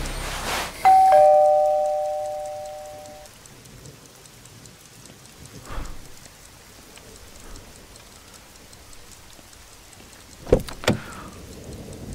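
Two-tone ding-dong doorbell chime about a second in, a higher note then a lower one, ringing out over about two seconds, over steady rain. Near the end come two sharp clicks as the front door is unlatched and opened.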